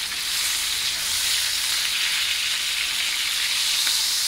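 Thick ribeye steak searing in hot ghee (clarified butter) in a pan over high heat, sizzling steadily.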